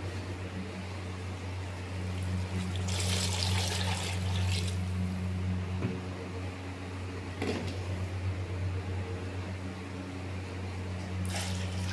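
Water being poured and splashing into a cooking pot of fried potatoes and masala. The rush is loudest for about two seconds a few seconds in, with shorter splashes later, over a steady low hum.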